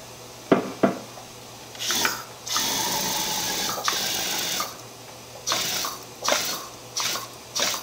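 Compressed air blasting through an A/C flush gun, driving flush solvent through an A/C component in short bursts. There are two clicks, then a brief blast, a longer hiss of about two seconds, and four short blasts near the end.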